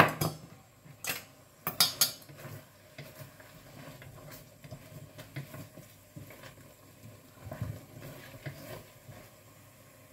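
A cooking utensil clinking and scraping against a wok while stirring adobo, mixing in cornstarch to thicken the sauce. A cluster of sharp clinks comes in the first two seconds, then lighter, scattered knocks and scrapes.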